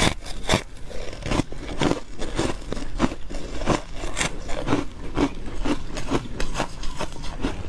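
Ice being bitten and chewed close to the microphone: an irregular run of sharp, crisp crunches and cracks, a few each second.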